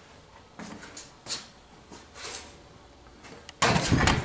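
Light shuffling and small knocks, then about three and a half seconds in a sudden loud clatter of sheet metal as the cut-off cab roof of a donor pickup truck is shifted, too heavy to lift off alone.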